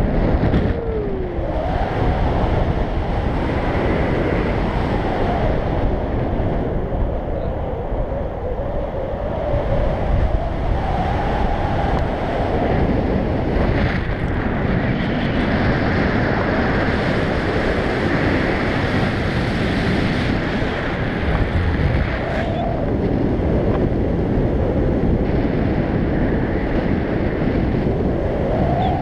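Loud, steady wind rushing over a GoPro microphone on a tandem paraglider in flight, with a faint wavering whistle at times.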